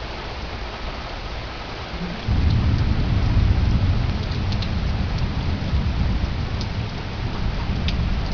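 Steady heavy rain, with a long deep rumble of thunder that sets in suddenly about two seconds in, is loudest soon after and slowly eases off. A few sharp ticks of drops sound near the end.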